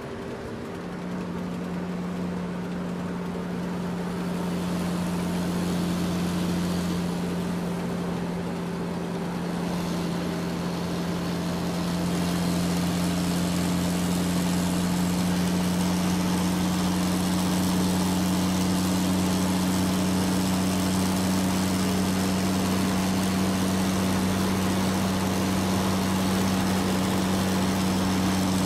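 Steady engine drone from radio-controlled scale construction models, a Liebherr crawler loader and a dump truck, working together as the loader fills the truck. The drone stops for a moment about half a second in, then grows a little louder over the first dozen seconds and holds even.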